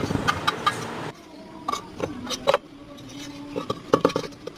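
Irregular metallic clinks and knocks, a dozen or so sharp strikes with a few short ringing tones, typical of metal pieces or tools being handled.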